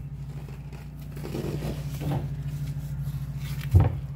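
Upholstered sectional chair pieces being handled and fitted together: soft rustling and knocking, with one heavier thump near the end, over a steady low hum.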